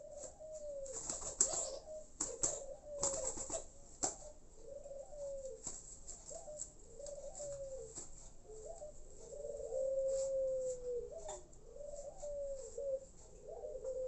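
A dove cooing in a series of short, arching coos about once a second, with one longer drawn-out coo a little past the middle. Rustling and sharp clicks from a dove being handled in someone's hands over the first few seconds.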